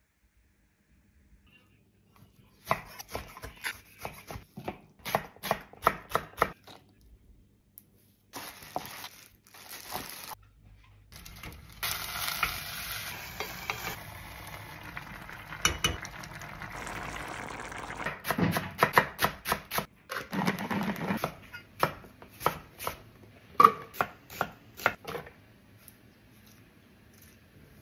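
Home kitchen cooking sounds in quick succession: utensils knocking and clinking against pots, bowls and jugs, and a steady stretch of water being poured into a pot of simmering seasoned greens.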